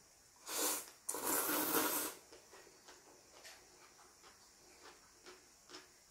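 A person slurping thin wheat noodles (janchi guksu): a short slurp, then a louder one lasting about a second, followed by soft clicking mouth sounds of chewing.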